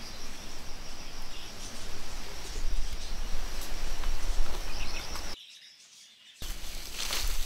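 Forest ambience: a steady high insect drone with scattered short bird chirps. It drops out abruptly for about a second near the end, then resumes.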